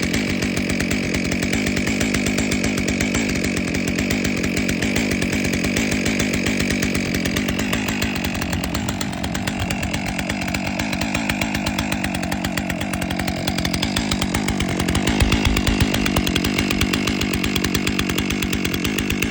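Stihl MS661 C two-stroke chainsaw engine running steadily while warming up, briefly louder and deeper about fifteen seconds in.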